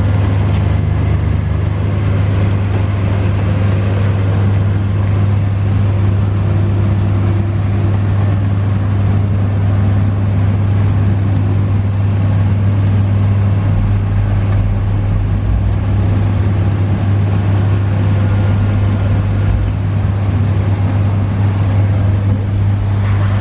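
Atlas 1504 wheeled excavator's diesel engine running steadily with a constant low hum while the arm and bucket work.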